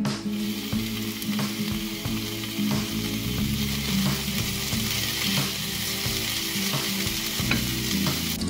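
Diced potatoes, carrots, broccoli and peppers sizzling steadily in a frying pan as a wooden spatula stirs them, with occasional light taps and scrapes against the pan.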